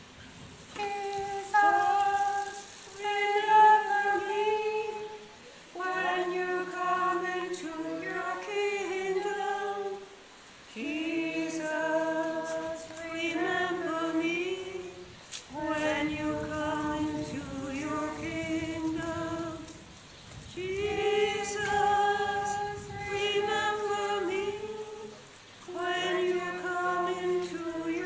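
Voices singing a hymn unaccompanied in phrases of about five seconds, with short pauses for breath between them.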